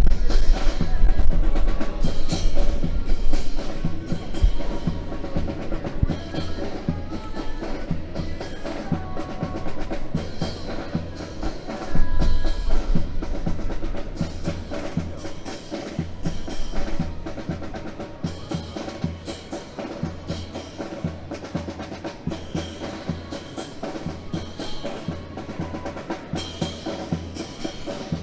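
Percussion-driven music with snare drum rolls, bass drum and a sustained melodic part, louder in the first half.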